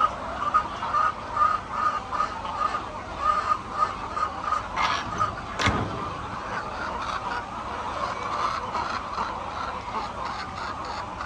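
A flock of hens clucking and chattering without a break. A single sharp knock comes a little past halfway through.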